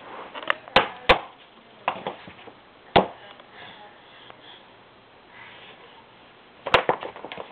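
Sharp knocks of a plastic toy broom hitting a wall, four loud ones: two close together about a second in, one around three seconds, and one near the end.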